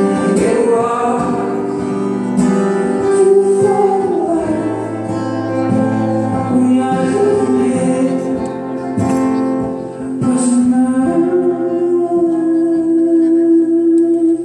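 Two acoustic guitars played live with a man singing, including a long held note near the end.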